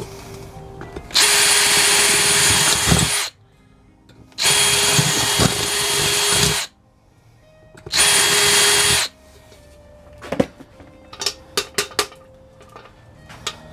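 Power drill boring out a misaligned hole in a sheet-metal headlight bucket, run in three bursts of about two, two and one seconds with a steady whine. Light metallic clicks and taps follow near the end.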